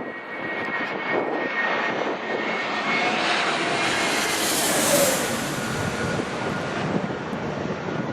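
Jet airliner passing low overhead, its engine noise swelling to a peak about five seconds in and then fading, with a thin whine early on.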